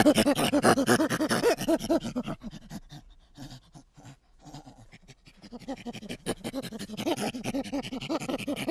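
An animal calling in a rapid run of short pitched pulses, several a second; it fades out about two seconds in and starts again about three seconds later.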